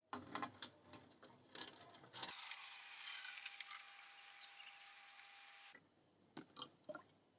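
Distilled water poured from a jug into a plastic jerrycan: a steady trickle that starts about two seconds in and stops sharply near six seconds. Light knocks and clicks of the plastic containers come before it, and two more near the end.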